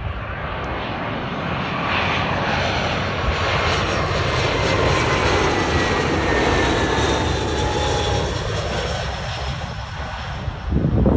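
British Airways twin-engine narrow-body jet airliner passing low overhead on its landing approach, gear down: the engine roar swells, is loudest as it goes over, then eases, with a whine that falls in pitch as it passes. A short loud rumble comes near the end.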